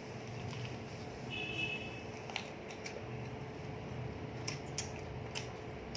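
Eating noises from chewing big bites of a sandwich: scattered soft mouth clicks and smacks over a faint steady hum, with a brief high squeak about a second and a half in.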